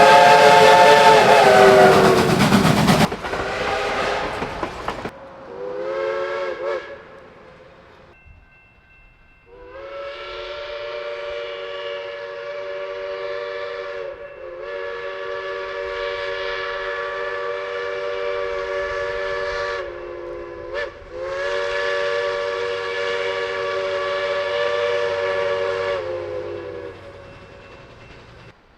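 A locomotive's multi-note chime whistle sounding a string of blasts. The first is very loud with a rush of noise and a slight drop in pitch. A short blast follows, then three long ones, each bending in pitch as it opens and closes; the last fades out.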